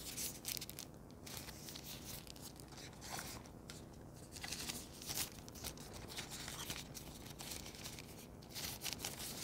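Plastic packaging of a screen protector crinkling and rustling as it is handled, with irregular scratchy crackles and small tearing noises.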